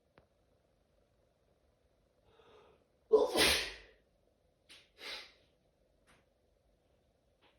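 A person sneezing in an allergy sneezing fit: a short intake of breath, then one loud sneeze about three seconds in, followed by two quieter breathy sounds.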